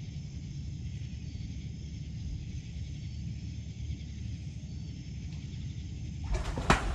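Steady outdoor night background of chirping insects over a low rumble. Near the end comes a sudden burst of noise with a sharp knock.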